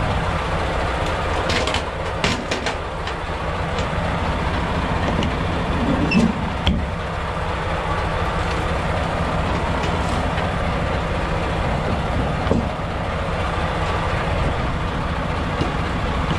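Semi truck's diesel engine running steadily, with a few sharp clicks and knocks, most of them about two seconds in.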